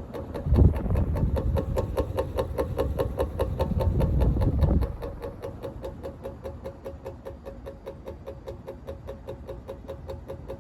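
Small plastic Emerson Designer ceiling fan running: a steady motor hum with rapid, even ticking from the switch housing, which the owner puts down to a cracked nylon bushing. From about half a second to nearly five seconds in, a louder low rumble covers it.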